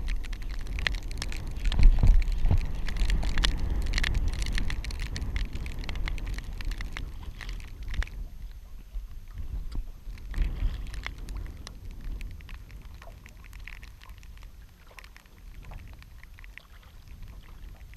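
A hooked fish being reeled in to the side of a small aluminium boat. There is a low rumble on the microphone and many scattered sharp ticks and splashy clicks, which thin out and quieten after about eight seconds.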